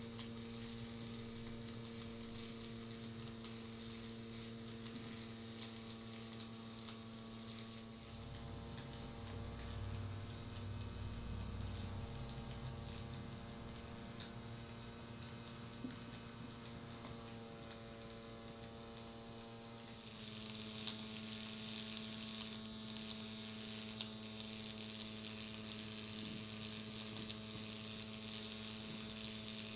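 Miniature alcohol-fired vertical toy steam engine running: a steady fast buzz with hissing steam and fine rapid ticking. The hiss gets louder about two-thirds of the way through.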